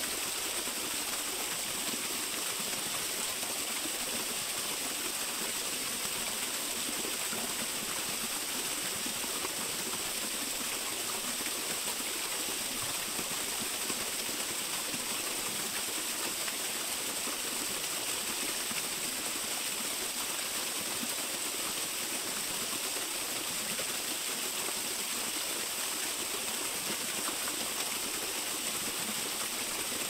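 Small waterfall splashing: a steady, even rush of falling water that holds the same level throughout.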